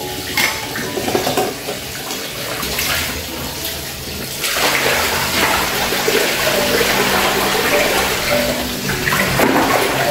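Tap water running and splashing into plastic basins while dishes are rinsed by hand, growing louder and steadier about four and a half seconds in.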